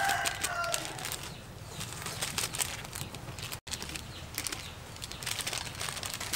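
Plastic seasoning sachets crinkling and rustling as seasoning is shaken out over a heap of instant noodles, a fast patter of small dry ticks. A rooster's crow trails off in the first second, and the sound drops out briefly a little past halfway.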